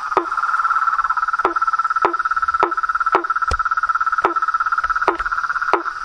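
Frogs calling at night: one holds a continuous fast trill, and short sharp calls sound over it about twice a second, each dropping quickly in pitch.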